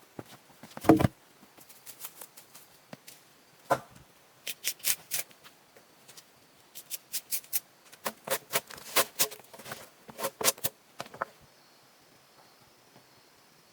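Irregular sharp knocks and taps, some in quick clusters, with one heavier thump about a second in.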